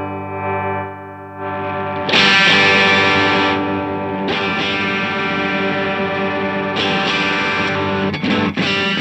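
Electric guitar played through a distortion pedalboard: chords struck and left to ring, a new one every second or two, with quicker, choppier strums near the end.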